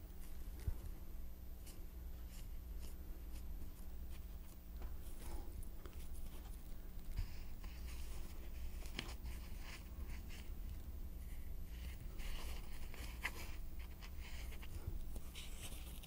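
Sheets of white foam being handled and pressed down by hand on a wooden worktable: faint rustling, scraping and small taps, with a few brief louder rustles near the end, over a steady low hum.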